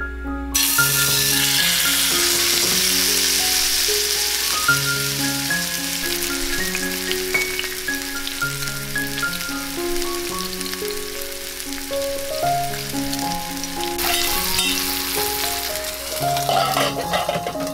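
Thick block of beef sizzling in hot oil in a frying pan. The sizzle starts suddenly about half a second in, as the meat goes into the pan.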